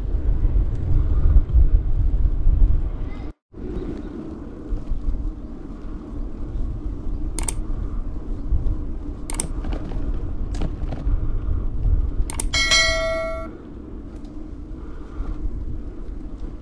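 Steady low wind and road rumble from a bicycle being ridden, with the sound dropping out for a moment about three seconds in and a few sharp clicks later. About twelve seconds in, a bicycle bell rings for about a second and stops abruptly.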